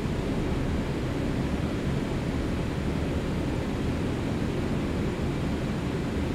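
Steady low rumble inside a city bus, its engine idling while the bus waits in traffic.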